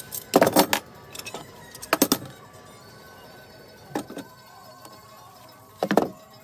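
Metal C-clamps and a wooden board knocking and clinking as they are handled on a workbench, in four short bursts, the loudest about half a second in.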